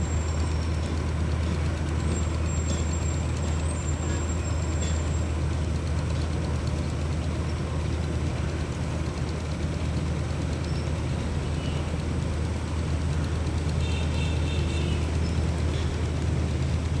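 Steady low engine drone with a constant hum that does not rise or fall, under a general outdoor wash of noise, with a few faint thin high tones now and then.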